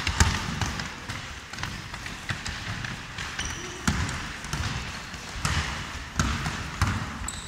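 A basketball being dribbled on a wooden gym floor: irregular sharp bounces, with a couple of short high squeaks.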